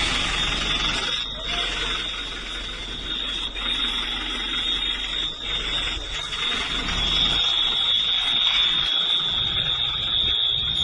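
A steady high-pitched alarm-like tone that holds one pitch, over a rough background noise and a low hum.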